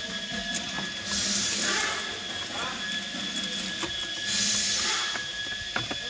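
Hands working at a car's exposed steering column and clock spring, with a few light plastic clicks. Repeated bursts of hissing about a second long stand out, over a faint steady high tone.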